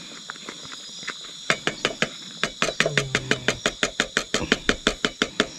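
A rapid, even run of clicks, about six a second, starting about a second and a half in, over a steady high chirring of crickets.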